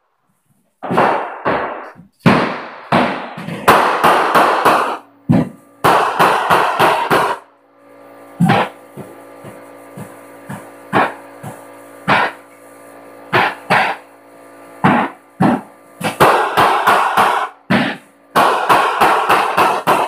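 Hardwood floorboards being beaten tight and stapled down with a flooring staple gun: runs of quick, sharp hammer blows, several to a run. Music plays quietly between the blows in the middle.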